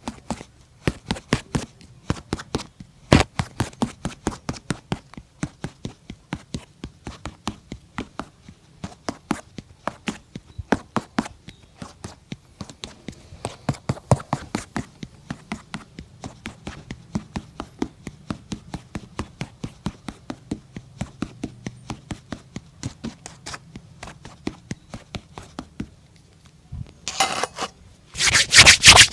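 A cobbler working a shoe by hand: an even run of short, sharp strokes, about two or three a second, turning into louder, quicker strokes in the last couple of seconds.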